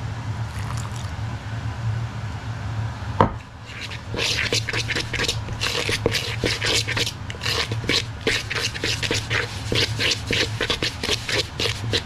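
A metal fork scraping and raking through crumbly shortcrust pastry mix in a mixing bowl, in quick repeated strokes about four a second from about four seconds in. A single sharp knock comes just before the scraping starts, over a low steady hum.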